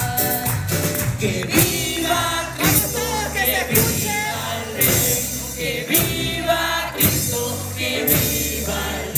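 Live band playing with singing: a male lead singer and a women's chorus over keyboards, drums, guitar and hand percussion, with a strong beat about once a second.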